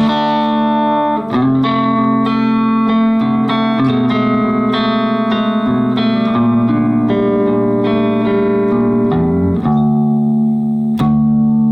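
Handmade Harmony Stratotone Jupiter hollow-body electric guitar played in a non-standard tuning: chords and picked notes ringing on, with one sharp click near the end.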